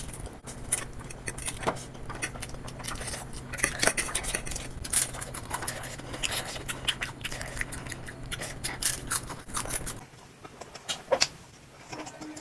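Close-miked eating sounds: a mouthful of spicy instant noodles, then bites and chewing of crisp, syrupy jalebi, full of wet clicks and crackles over a steady low hum. About ten seconds in, the sound drops to a quieter eating scene with a couple of sharp clicks.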